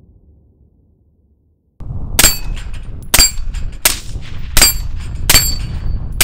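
AR-15 with a Gemtech Integra upper firing 5.56 rounds semi-auto, five single shots at a steady pace of about one a second, starting about two seconds in. Each shot is followed by a brief metallic ring from the steel plate targets being hit.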